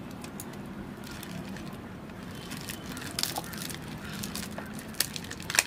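Thin plastic sheet crinkling in small crackles as it is pressed over a plastic cup and fastened with a rubber band, with one sharp click near the end.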